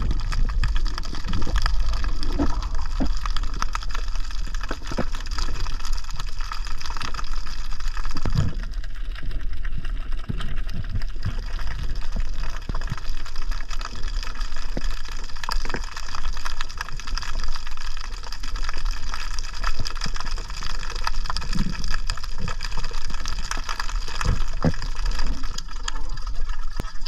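Water gurgling and rushing steadily, with scattered sharp knocks and clicks.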